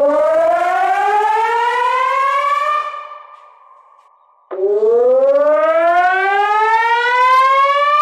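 Electronic disaster warning siren sounding two rising wails. The first climbs for about three seconds and fades away. The second starts abruptly about four and a half seconds in and climbs until it is cut off.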